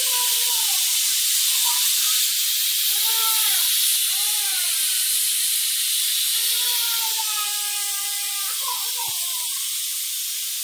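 Stovetop pressure cooker whistling: steam blasting out under the weight valve in a loud, steady hiss, with a wavering whistle tone that comes and goes several times. This is the whistle that signals the cooker has come up to cooking pressure.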